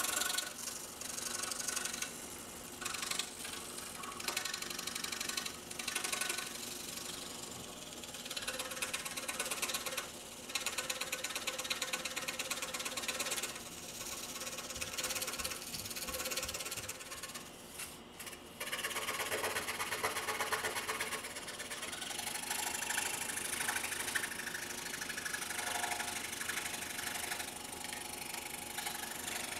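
Scroll saw running, its reciprocating blade chattering rapidly as it cuts through balsa wood. The sound breaks off briefly twice.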